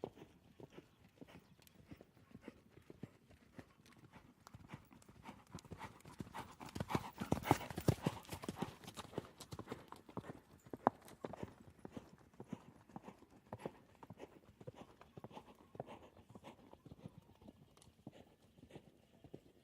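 A rapid, irregular run of clopping knocks or footfalls. It swells louder for a few seconds around the middle, then settles back to a quieter, steady patter.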